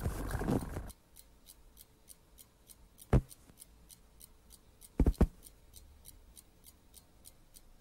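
Steady quick ticking, about three to four ticks a second, like a clock in a quiet room. It is broken by sharp thumps: one about three seconds in and two in quick succession about five seconds in. A louder sound cuts off about a second in.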